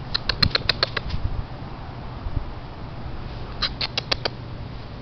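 Shih Tzu puppy giving quick, high-pitched squeaky yips in two bursts, about seven in the first second and four or five more a little under four seconds in, while mouthing a hand in play.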